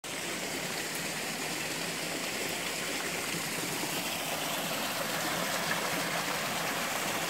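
Small waterfall on a forest brook, water splashing and rushing steadily over mossy rocks, growing slightly louder toward the end.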